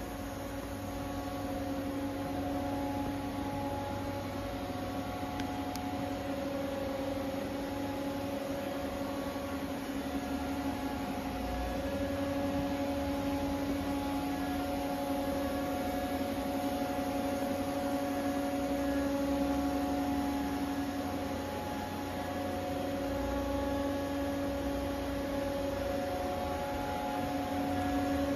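Steady machinery hum: a low drone with several held tones above it that waver slightly in strength, like running motors and fans.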